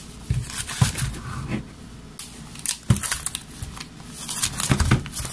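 Clear plastic packs of gouache jelly cups being handled and set down on a table: a string of irregular plastic clicks and knocks with some crinkling in between.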